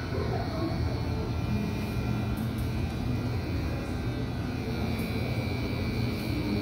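Electric hair clipper running with a steady low buzz that does not change.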